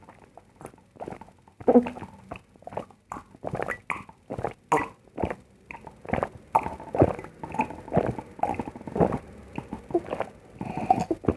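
Close-miked chewing: irregular wet smacks and small crunches of food being eaten, several a second.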